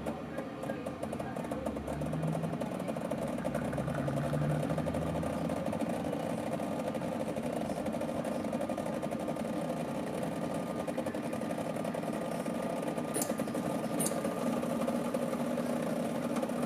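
Decent espresso machine's pump buzzing steadily while it pushes water through the puck at a set flow of about 2 ml/s during the extraction. A low hum joins near the end.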